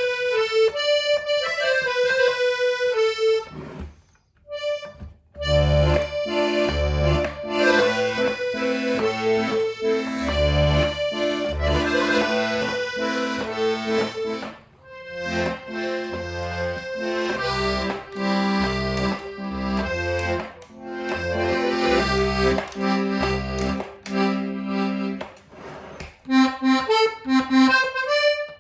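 Hohner Corona II diatonic button accordion playing a tune. The treble melody comes first, and bass notes and chords from the bass side join it about five seconds in, then drop out near the end. All its reeds, treble and bass, have been freshly tuned.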